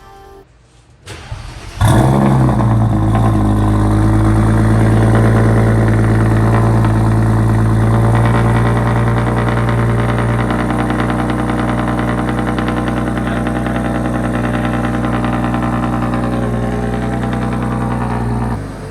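A car engine starting, catching just under two seconds in, then running steadily.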